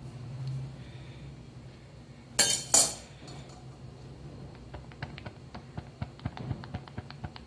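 A metal cooking pot knocked twice with a clanging ring, then a growing run of short sharp ticks and pops from the pan as the water heats toward a boil, over a faint steady low hum.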